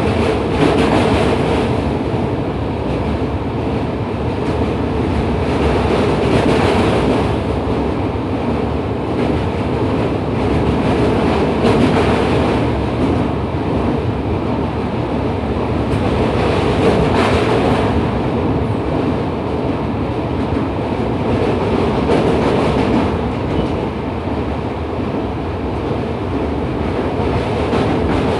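A train running across a steel girder railway bridge, heard from on board: the steady noise of wheels on rails and the moving carriage, swelling louder every five or six seconds.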